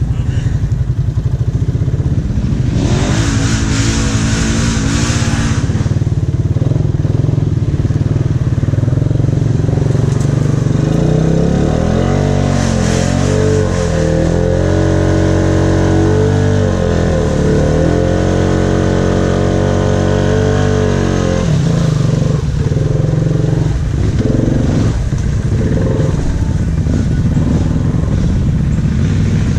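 ATV engine running and revving through a muddy creek, its pitch rising and falling in repeated pulls between about eleven and twenty-one seconds in. A burst of splashing water about three seconds in.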